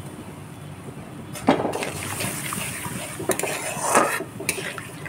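Spatula scraping and knocking against a kadhai while stirring thickening milk white sauce, in several strokes that start about a second and a half in.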